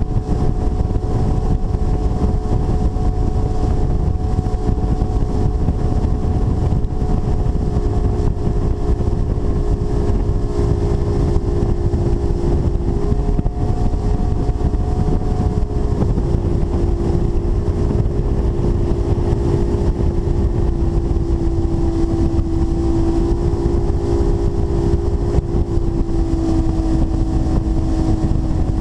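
Skeeter ZX225 bass boat's outboard motor running steadily under way, a continuous drone whose pitch drifts slightly a few times, over a heavy low rush of wind and water.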